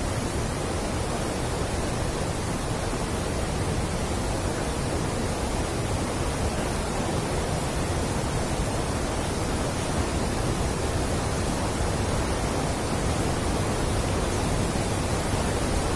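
Steady rushing of river water pouring through an open sluice gate of a weir and churning into white water below.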